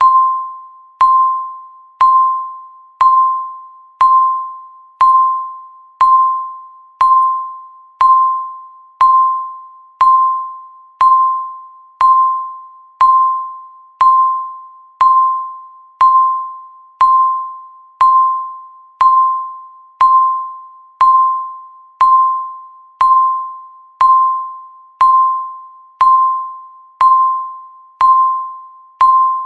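Countdown timer's electronic beep, one short pure tone a little above 1 kHz struck once every second and fading away before the next, marking each second of the count.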